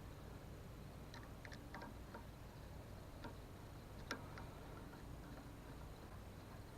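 Faint scattered clicks and taps of small hardware being handled during the fitting of a kill switch, with one sharper click about four seconds in, over a low steady hum.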